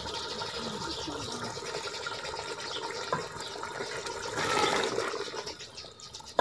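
Beef and potato curry sizzling and bubbling in a pot as it is stirred with a wooden spoon, with a louder stir about four and a half seconds in. The potatoes are being fried in the meat masala before water is added for the broth.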